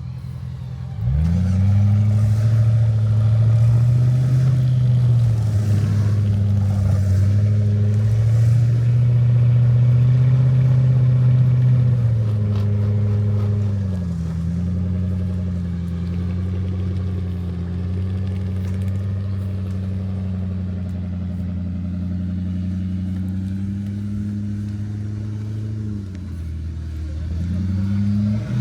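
Off-road Jeep's engine driving over rough ground. The revs jump up about a second in and hold with small rises and falls, drop to a lower pitch about halfway, then dip and pick up again near the end.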